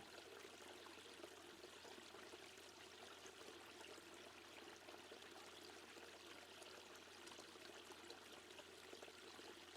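Faint, steady background sound of flowing water, like a gentle stream or pouring water, with no other events.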